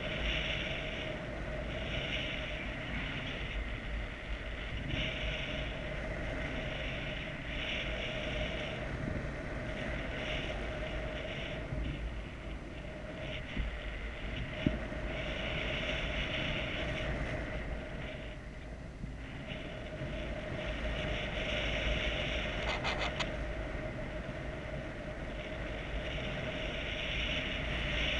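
Wind noise from the airflow of a paraglider flight buffeting the camera microphone: a steady rush that swells and eases about once a second, with a faint steady tone underneath.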